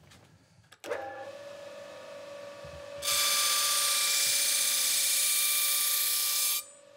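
A polishing machine's motor starts up about a second in and runs with a steady hum. About three seconds in, a knife blade is pressed against the spinning polishing wheel, giving a loud, even hiss. The hiss stops shortly before the end as the blade comes off the wheel.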